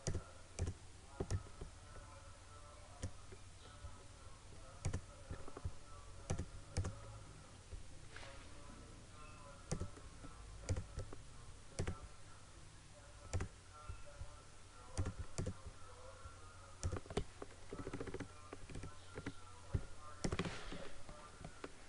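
Computer mouse clicks and keyboard key presses: irregular, scattered sharp clicks over a faint steady hum.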